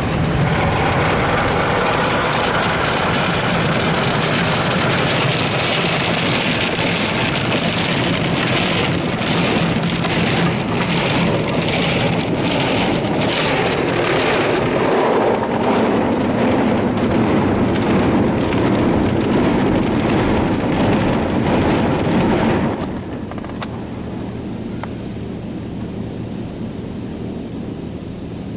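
Automatic soft-touch car wash working over the truck, heard from inside the cab: a heavy rush of water spray and scrubbing like driving rain on the roof and windows. The rush cuts off about 23 seconds in, leaving a quieter steady machine hum.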